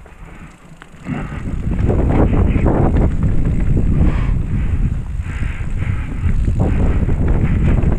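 Wind buffeting the microphone while a mountain bike rolls down a rooty trail, with the rattle and knocks of the tyres and frame over the roots; it starts about a second in.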